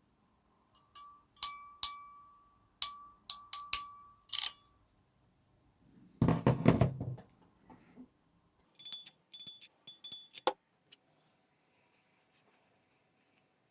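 A run of sharp clicks and clinks from small hard objects, several with a short metallic ring, then a dull thump with rustling about six seconds in. A second quick run of higher-pitched clicks follows about nine seconds in.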